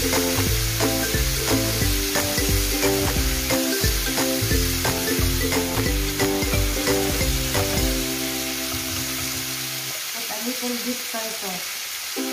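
Chopped bitter melon sizzling in a hot frying pan as it is stirred with a wooden spoon, with background music underneath.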